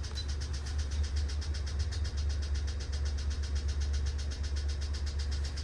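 Daihatsu Tanto Custom's three-cylinder KF engine idling with a steady low drone and a fast, even ticking at about eight or nine a second: the abnormal engine noise this car has.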